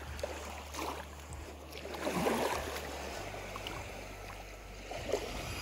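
Small waves lapping and washing up onto a sandy shore at the water's edge, with the biggest wash about two seconds in.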